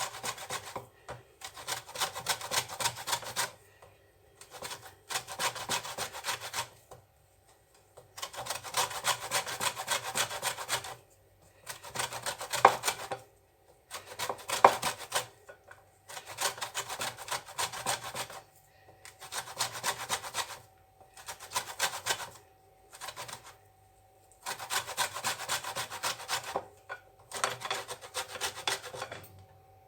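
Orange peel being grated on a hand grater for zest: runs of quick rasping scrapes, each a second or three long, broken by short pauses. Only the outer coloured layer is taken, leaving the bitter white pith.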